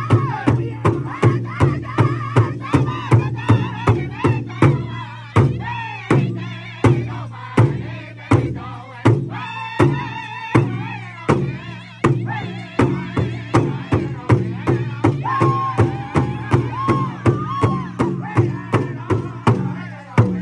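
Powwow drum group: several men striking one large shared drum together in a steady beat, about two to three strokes a second, while singing in high, wavering voices. Between about six and nine seconds in, the beats come further apart.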